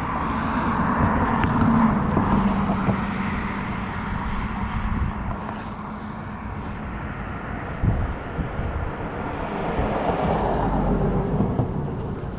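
A passing motor vehicle's engine, swelling and fading twice over a steady outdoor rumble, with one sharp knock about eight seconds in.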